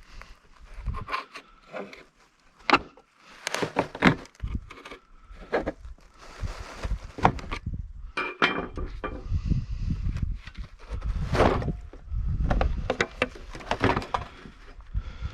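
Hand tools knocking, prying and scraping at a steel safe door, breaking out the concrete-like fireproof fill packed inside it. The irregular knocks and scrapes come several a second, some with a short metallic ring.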